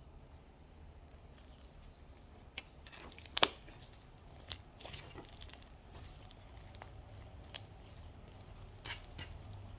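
Scattered sharp clicks and crackles of small things being handled, with the loudest about three and a half seconds in and a few fainter ones after.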